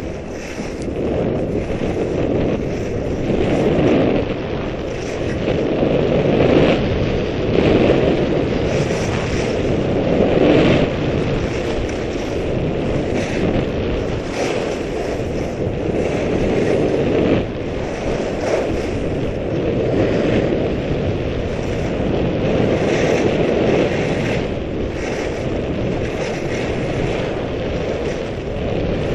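Wind rushing over the microphone of a camera carried by a downhill skier. The skis hiss and scrape on packed, groomed snow, and the sound swells and fades with each turn.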